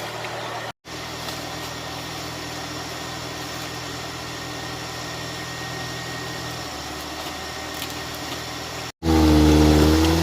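Off-road vehicle's engine running steadily, with a low drone, broken twice by abrupt cuts. About nine seconds in, a much louder wavering pitched sound takes over.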